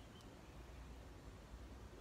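Near silence: faint outdoor background, with one soft tick shortly after the start.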